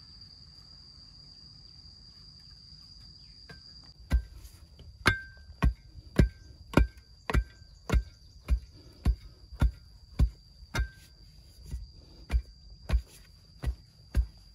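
A stick tamping soil down around a bamboo post in its hole: about seventeen evenly spaced thuds, a little under two a second, starting about four seconds in. Some have a brief ring. A steady high insect drone runs throughout.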